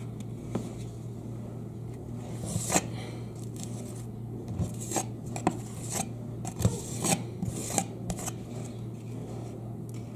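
Metal putty knife spreading and scraping patching plaster across a drywall patch: a run of short, irregular scraping strokes, most of them in the middle seconds, over a steady low hum.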